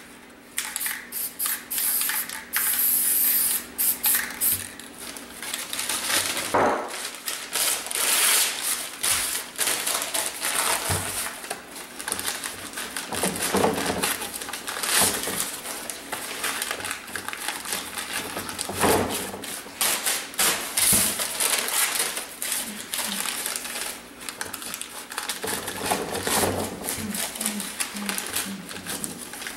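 Aerosol spray-paint can hissing in bursts in the first few seconds, then paper crinkling and rustling as crumpled magazine pages are pressed and rubbed onto the painted board.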